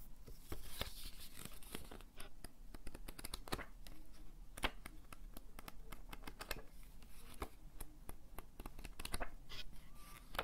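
Close-miked rustling, crinkling and scratching of keyboard packaging handled by hand, a dense run of sharp crackles.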